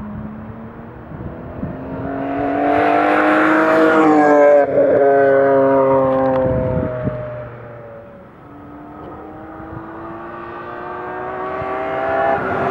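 BMW E46 M3's straight-six through a Gruppe M replica exhaust with two AR20 resonators, accelerating past: the engine note swells, goes by about four seconds in with a drop in pitch and fades away. A second pass then builds, the note rising and getting louder toward the end.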